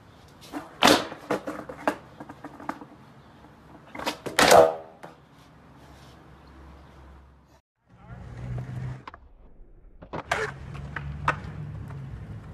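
Skateboard tricks on pavement: the board pops and clacks several times about a second in, then slaps down hard about four seconds in, the loudest hit, and rolls on with a low wheel rumble. After a brief break, the wheels rumble again and the board clacks twice more.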